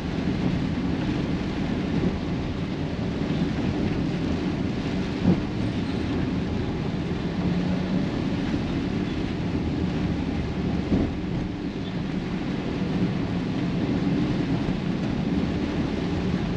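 Steady low rumble of road travel in wind and rain, with wind buffeting the microphone. A few dull knocks, the loudest about five seconds in.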